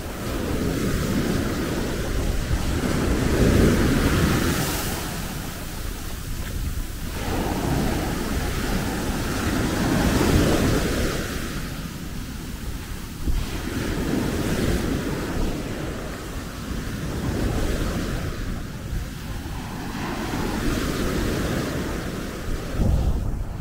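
Gentle sea waves breaking on the shore of a breakwater-sheltered beach, each wash swelling and ebbing every few seconds, with wind rumbling on the microphone.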